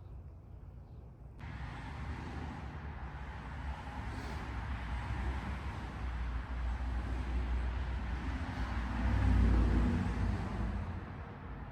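A car running, its engine and road noise steady with a heavy low rumble, swelling to its loudest about nine seconds in and then easing off.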